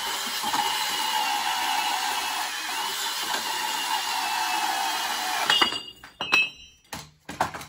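Cordless portable band saw cutting through 2-inch steel pipe, running steadily, then stopping about five and a half seconds in. A few sharp metallic clanks follow near the end.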